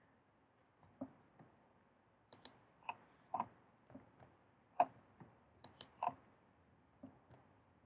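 Faint, irregular clicks of a computer mouse and keyboard: about a dozen single clicks, unevenly spaced, some close together in pairs.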